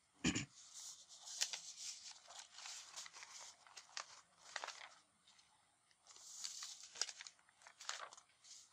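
Sheets of paper being handled and turned over: crinkling rustles with light crackles and clicks.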